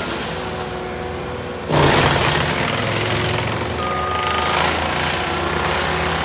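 Diesel engine of a compact track loader running under load while clearing brush, getting suddenly louder a little under two seconds in. A brief high steady whine sounds near the middle.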